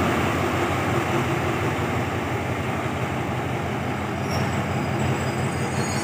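Diesel locomotive running slowly past with its train: a steady low engine drone under rolling wheel noise. A brief faint high wheel squeal comes about four seconds in.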